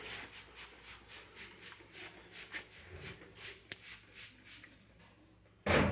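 Soft rhythmic shuffling, about three or four scuffs a second, as someone walks, then a short loud burst of noise near the end.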